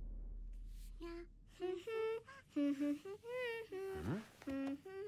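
A young girl humming a tune. A low tone fades out during the first second.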